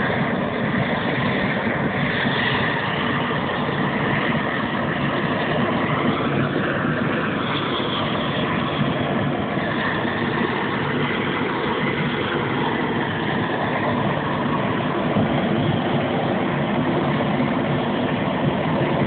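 Propane gas torch burning steadily with a constant rushing noise as it singes the hair and skin of a slaughtered pig.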